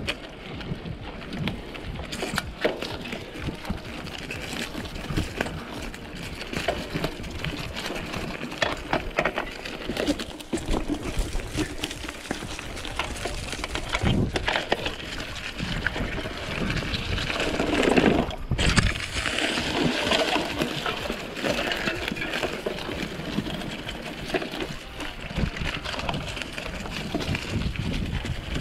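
A 29-inch mountain bike riding along a dirt trail: a steady noise of tyres rolling over soil and debris, full of small clicks and rattles from the bike jolting over bumps, louder for a moment about 18 seconds in.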